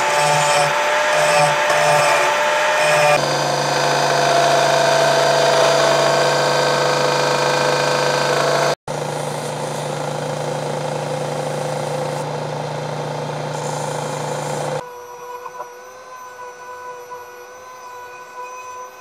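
Angle grinder grinding a steel knife blank, giving way after about three seconds to the steady running of a belt grinder as the blade is ground on the belt. Near the end it changes to the quieter, higher whine of a small handheld rotary tool grinding the blade.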